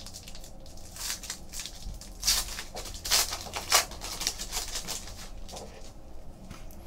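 Foil trading-card pack wrapper being torn open and crinkled by hand: a run of short crackling rips, the loudest about two to four seconds in.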